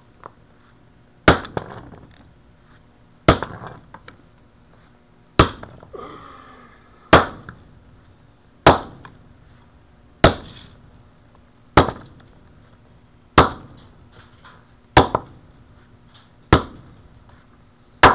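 A mobile phone being smashed with about eleven hard blows, one every second and a half to two seconds. Each sharp crack is followed by a brief crunch and rattle of breaking pieces.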